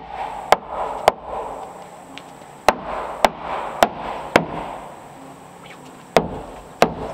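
Hammer striking wooden battens on a plank wall: sharp blows about two a second, in three runs of three, four and then two.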